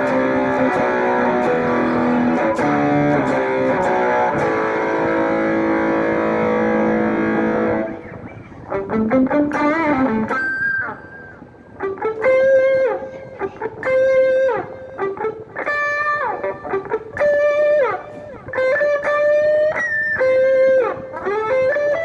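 Electric guitar through a distortion pedal with an analog-style tone. A thick distorted chord rings for about the first eight seconds, then a single-note lead line follows with string bends and vibrato.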